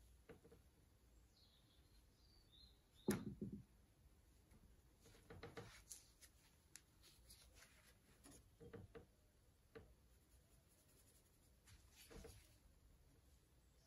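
Faint, sparse brushwork sounds: an oil paintbrush stroking and dabbing on a small painting panel and mixing paint on the palette, a few soft scratches and taps, with one louder knock about three seconds in.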